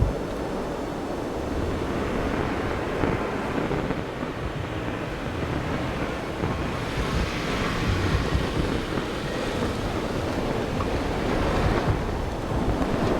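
Wind buffeting the microphone over a rally car, a Toyota 86, running on a snow-covered stage. About seven seconds in a rushing hiss rises, and it eases off near the end.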